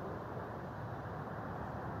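Steady rushing outdoor background noise with no distinct event; the ball rolling on the grass makes no audible sound.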